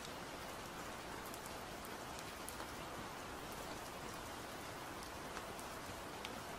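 Steady rain falling: an even shower, with scattered single drops ticking through it.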